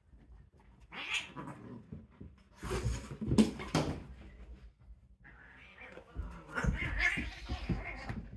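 Two Burmese cats chasing and play-fighting: bouts of scuffling and sharp thumps, loudest a little under halfway through, with cat vocal sounds among them.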